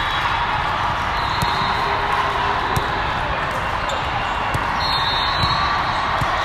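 Echoing din of a large multi-court volleyball hall: many voices talking and calling, with a few sharp thuds of volleyballs hitting the floor.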